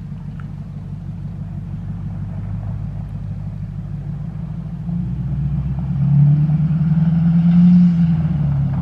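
Ford Super Duty pickup towing an enclosed trailer, its engine running at a low steady rumble as it drives closer. It grows gradually louder, loudest in the last few seconds as it pulls up.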